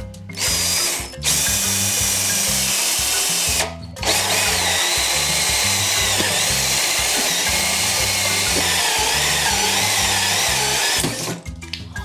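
Cordless drill driving a hole saw through a wooden board, with a wavering motor whine under load. It starts with a short burst about half a second in, runs again to near four seconds, pauses briefly, then runs steadily for about seven seconds before stopping near the end. Marimba background music plays underneath.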